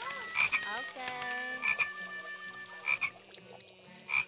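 A frog calling: a short double croak repeated four times, about every second and a quarter.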